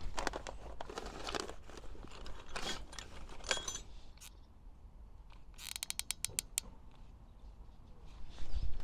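Handling noises from gluing dent-puller tabs onto a car panel with a hot glue gun: scraping and rustling, then a quick run of about ten sharp clicks about six seconds in, and a thump near the end.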